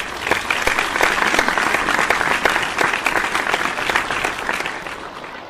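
A large crowd applauding, many hands clapping at once. It starts abruptly and dies down near the end.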